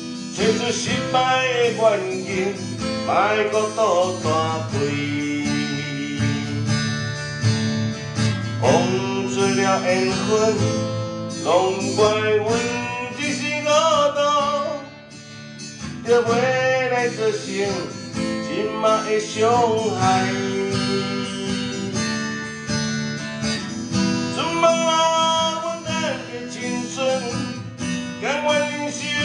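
A man singing a slow Taiwanese Hokkien song while strumming an acoustic guitar, with a short break in the sound about halfway through.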